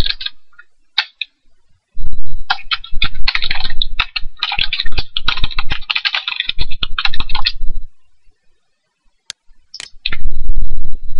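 Typing on a computer keyboard in quick runs of key clicks. It stops about eight seconds in, and near the end come a couple of sharp clicks and a short burst of noise.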